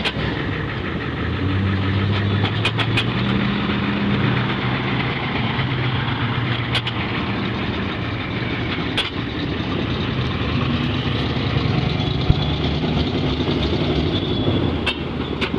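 Pickup truck engines running as the trucks drive slowly past, a steady engine drone whose pitch shifts a little as they move, with a few short sharp clicks.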